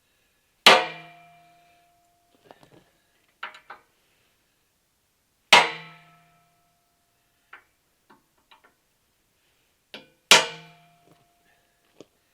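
Three hammer blows on a transfer punch, about five seconds apart, marking hole centres through a vise base into a 3/8-inch steel plate tabletop; each strike leaves the steel ringing briefly. Light taps and clicks fall between the strikes.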